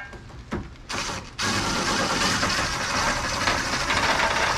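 A few light clicks, then from about a second and a half in a loud, steady mechanical whirring rattle.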